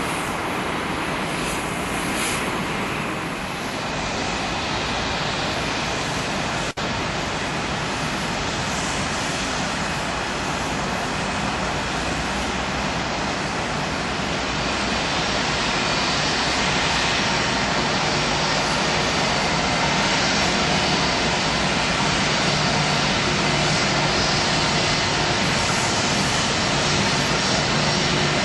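Jet engines of an Airbus A319 airliner running with a steady rushing noise and faint whine, growing a little louder about halfway through.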